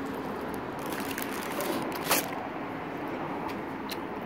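A person biting into and chewing a cold-cut sub sandwich close to the microphone, with a few small clicks and one sharp click about two seconds in, over a steady background hum.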